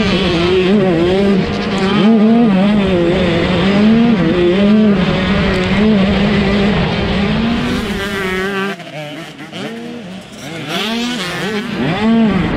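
125cc two-stroke motocross bike engine at race speed, heard close from the rider's helmet camera: its pitch rises and falls as the throttle is worked and the gears change. About two-thirds of the way in it gives way to quieter two-stroke bikes revving past a trackside microphone. The close engine returns near the end.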